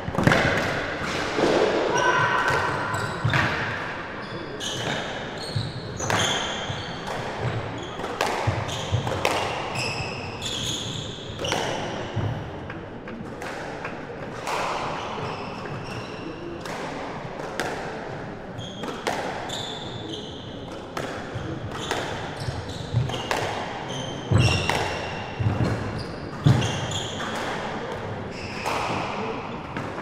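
Squash rallies: the ball cracking off rackets and smacking the front and side walls in a sharp, irregular series of strikes that echo around the court, with short squeaks between them. The strikes come thickest in the first few seconds and again late on.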